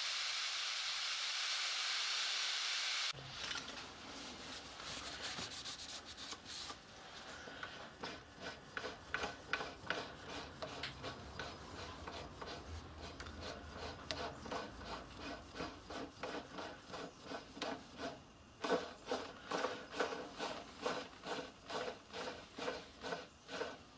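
A machine spindle runs steadily for about three seconds, with a high whine that stops partway, while graduation marks are cut into a steel tailstock barrel. The machine then stops and rhythmic rubbing strokes on metal follow, about two a second and stronger near the end, as the freshly marked barrel is de-burred.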